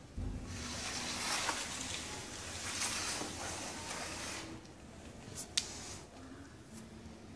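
Clear plastic sheet covering a tabletop model being handled, rustling and crinkling for about four seconds, then two sharp clicks a little after five seconds in.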